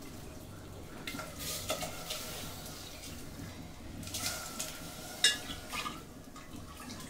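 Steel cooking pots clinking and knocking, with hands working food in a pot of water over a wood fire. The sharpest knock comes about five seconds in.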